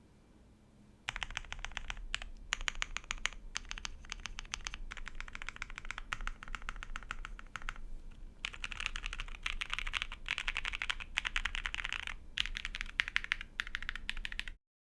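Typing on an Akko Alice Plus mechanical keyboard fitted with lubed and filmed Quartz v2 switches and ABS keycaps, with tape and foam mods. Rapid keystrokes come in bursts with short pauses, starting about a second in and cutting off abruptly near the end.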